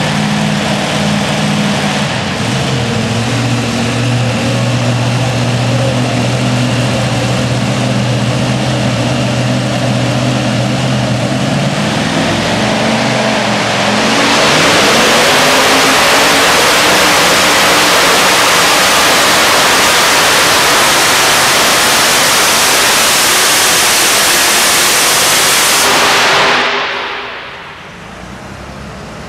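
Modified pulling tractor's supercharged engine idling at the line, then revving up about twelve seconds in and running at full throttle under load for about twelve seconds, dropping off abruptly near the end as the pull ends.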